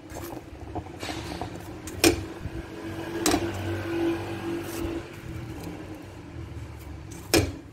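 Slotted spatula pressing and turning a flatbread in a nonstick frying pan, with three sharp knocks of the spatula against the pan: about two seconds in, a second later, and near the end. A steady low hum runs underneath.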